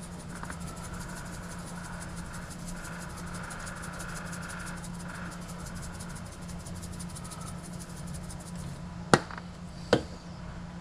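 Continuous fine rasping as dried oregano is dispensed from a small spice container over the slow cooker, stopping about nine seconds in, followed by two sharp clicks a little under a second apart. A steady low hum runs underneath.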